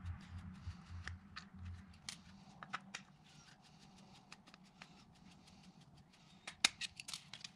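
Faint clicks and ticks of a Phillips screwdriver and small plastic parts being handled while two small screws are backed out of a plastic phone-holder mount, with a quick run of sharper clicks near the end.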